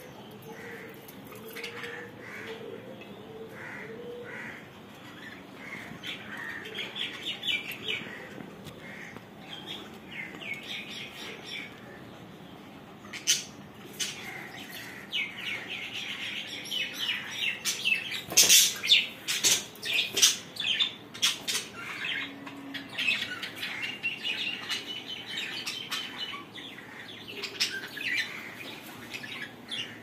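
Caged budgerigars chirping and chattering, the chatter growing busier and louder about halfway through, with a few sharp clicks mixed in.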